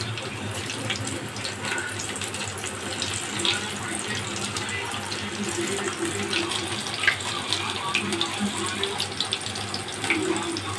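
Chicken pakoras deep-frying in hot oil in a steel kadhai: a steady sizzle with scattered crackles and pops, one sharper pop about seven seconds in.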